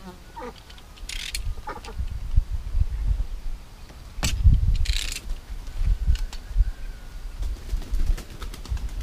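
A sharp hammer tap on a pine-board wall about four seconds in, and a few lighter taps near the end, as small tacks are set to hold a water hose. Bird calls and two short rustles come in the first half, over a low rumble on the microphone.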